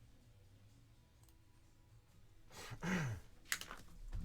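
A man's short, breathy nasal outburst with a falling pitch, about two and a half seconds in, from an irritated nose, followed by a single click.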